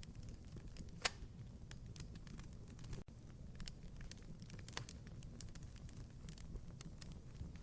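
Wood fire crackling in a fireplace: scattered sharp snaps and pops over a low, steady rumble of the flames, with one louder pop about a second in.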